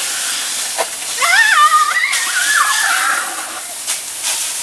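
Garden hose spraying water with a steady hiss. About a second in, a child's high-pitched squeal rises over it and lasts around two seconds.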